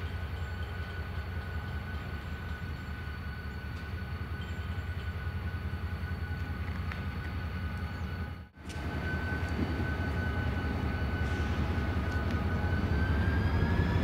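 Diesel locomotive running slowly at the head of a passenger train: a steady, pulsing engine rumble with a thin whine over it. The sound drops out for a moment about eight and a half seconds in, comes back a little louder, and the whine rises slightly near the end.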